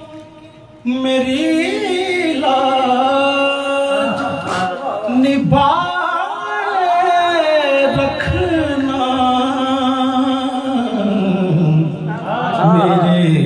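A man singing a naat, a devotional poem in praise of the Prophet, into a microphone in long held notes that bend and waver. A short pause at the start, then he comes back in about a second in.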